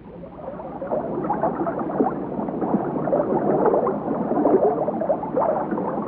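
Water splashing and gurgling as a steamer duck splashes at the surface, starting about half a second in and going on as a loud, irregular patter of splashes.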